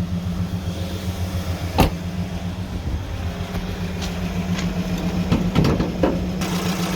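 High-mileage four-cylinder 2.7 Evotech petrol engine of a GAZelle van idling with a repeating tapping knock, a sharp clack about two seconds in. The knock sounds like a hydraulic valve lifter, but the owner finds the lifters fine and puts it down, at 50-50, to a valve seat knocking.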